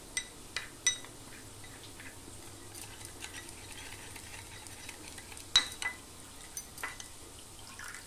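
A metal spoon stirs a thin cornflour slurry in a small glass bowl, with the liquid swishing and the spoon clinking sharply against the glass now and then. The loudest clink comes about five and a half seconds in.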